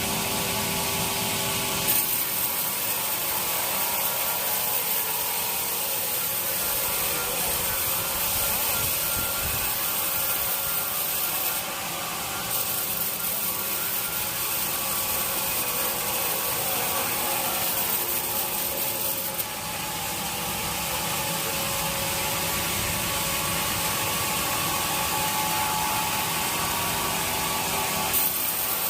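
Sawmill saw running steadily through an old teak log: a continuous high hiss of cutting over a steady machine tone, with slight dips in level twice.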